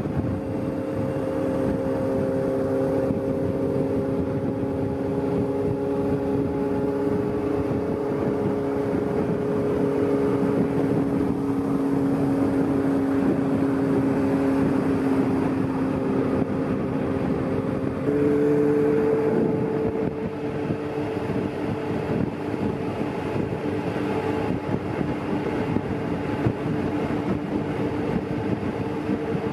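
Honda CB400Four air-cooled inline-four motorcycle engine with a short aftermarket exhaust, running steadily at highway cruising speed over road noise. The engine note shifts in pitch about 18 seconds in.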